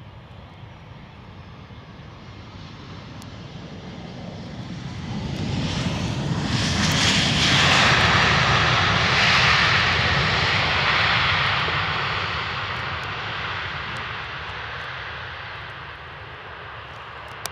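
Airbus A320 jet engines as the airliner rolls out along the runway after touchdown: the roar builds over several seconds, is loudest as the aircraft passes, then fades as it rolls away. A short click near the end.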